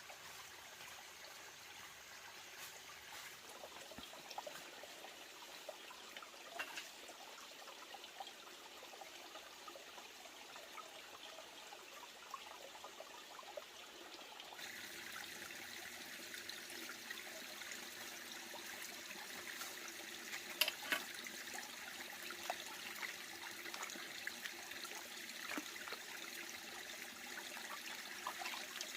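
Faint water trickling, with scattered light clicks; about halfway through the sound turns brighter and a little louder.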